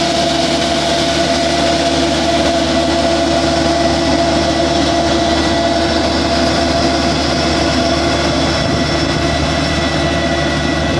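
New Holland Workmaster 45 tractor's diesel engine running steadily while it powers a tractor-mounted strawberry bug vacuum, with a constant whine over the drone.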